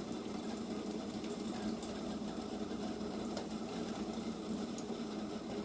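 Battered pickles frying in hot oil: a steady sizzle with scattered small pops, over a steady low hum.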